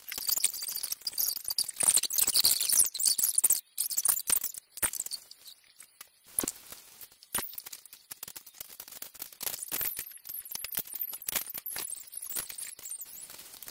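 Small plastic LEGO bricks clicking and rattling as they are picked up, pressed together and set down on a hard table. The rattling is densest for the first three seconds or so, then thins to scattered clicks.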